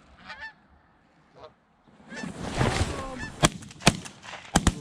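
Canada geese honking: a few scattered honks, then a dense overlapping chorus from an incoming flock swells about halfway through. Several sharp cracks come in quick succession near the end.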